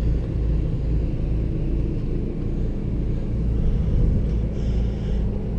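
Onan 4000 RV generator running with a steady low drone, carrying the load of the air conditioner that was left switched on.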